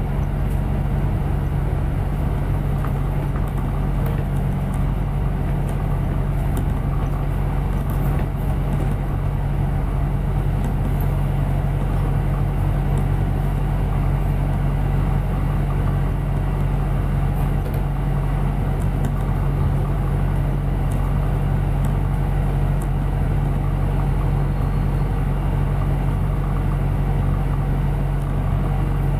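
Steady low engine drone and road rumble of a London double-decker bus, heard from inside on the upper deck as it drives along.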